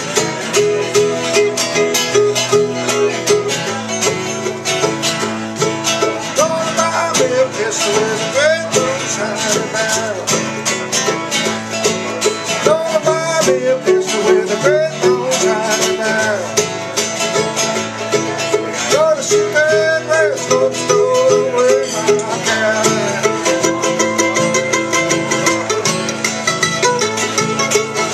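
Background music with quick plucked-string picking, in a bluegrass style.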